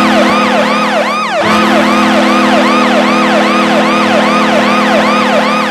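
Ice hockey arena goal horn sounding a steady chord, with a siren wailing up and down about two and a half times a second over it. The horn breaks off briefly about a second and a half in and then sounds again.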